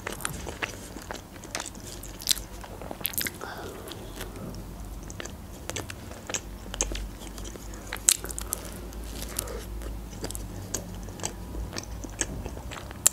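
Close-miked chewing of a mouthful of homemade pizza, with irregular small crunches and wet mouth clicks.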